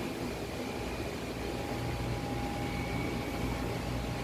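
Window-type air conditioner running: a steady low hum and a hiss of moving air, with a faint thin whine over them.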